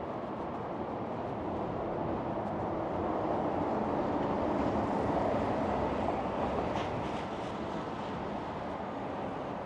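City street traffic noise, with a passing vehicle swelling up and fading away around the middle.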